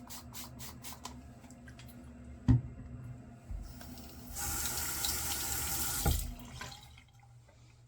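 Sink faucet turned on and running for under two seconds, then shut off, water run to re-wet the face between shaving passes. A single sharp knock comes about two and a half seconds in, before the water.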